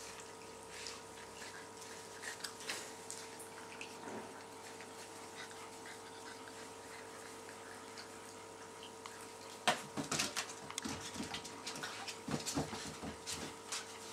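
Labrador retriever puppies playing: scattered scuffles and small clicks, busiest in the last four seconds, with a sharp knock nearly ten seconds in. A steady hum runs underneath.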